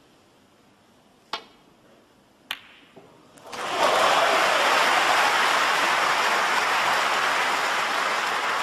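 Snooker cue tip striking the cue ball with a sharp click, then about a second later a second click as the cue ball hits the object red. Then the audience applauds, loud and sustained, for the long opening red potted.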